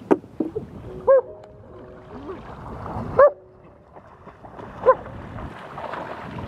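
River water splashing as a person washes, scooping it up by hand and throwing it over her face and head. Three short, high, whining yelps about a second, three seconds and five seconds in.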